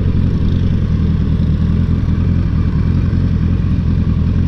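Kawasaki GTR 1000 motorcycle's inline-four engine running steadily.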